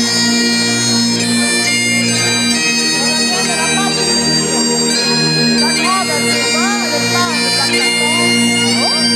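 Bagpipes playing live: steady drones held under the chanter melody.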